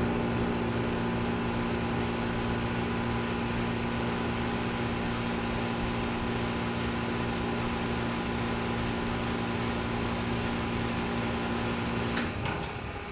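York YCG 3-ton central air conditioner condenser running steadily, its Copeland scroll compressor humming under the fan noise. Near the end the unit shuts down: the compressor hum cuts off suddenly, a sharp click follows, and the fan noise drops away.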